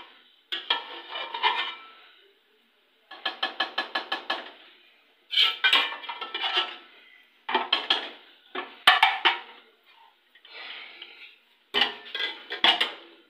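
Metal spoon scraping and knocking against a steel cooking pot in repeated bursts, with a run of quick taps about three seconds in.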